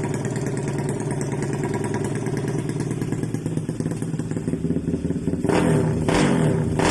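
RS 125 motorcycle engine idling steadily, then revved in short throttle blips from about five and a half seconds in.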